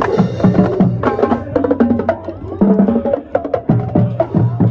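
Music with a busy percussion beat of sharp clicking strokes under pitched melodic lines.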